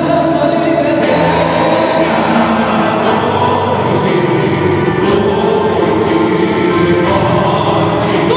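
Gaúcho folk music: a group of voices singing long held notes over instrumental backing.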